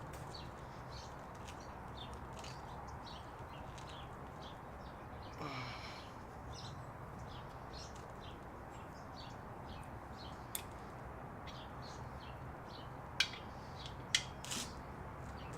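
Faint bird chirps repeating over steady background noise, with a few sharp clicks near the end.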